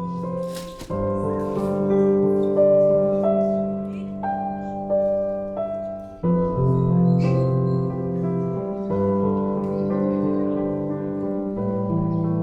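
Background music: slow, sustained keyboard chords that change every few seconds.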